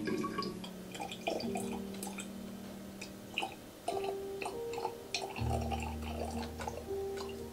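Rose water poured in a thin stream from a glass pitcher into a narrow-necked glass bottle, trickling and splashing with many small irregular drips, over soft background music with held chords.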